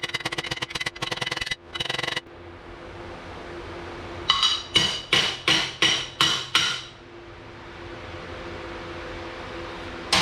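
Hammer blows on a steel bar being bent to shape: about six ringing metallic strikes, roughly two or three a second, midway through. These follow a rapid run of sharp taps in the first two seconds, over a faint steady hum.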